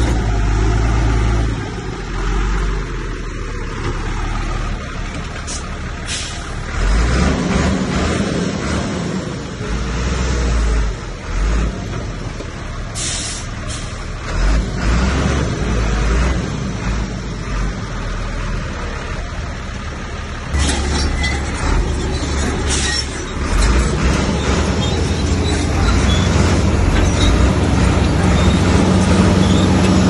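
Bulldozer's diesel engine working under load, its rumble rising and falling, with a few brief sharp noises now and then.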